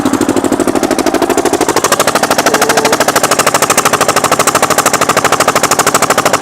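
Single-cylinder diesel generator engine running with its silencer removed and a large horn loudspeaker fitted on the exhaust: a loud, rapid, even train of exhaust bangs, like bombs going off continuously.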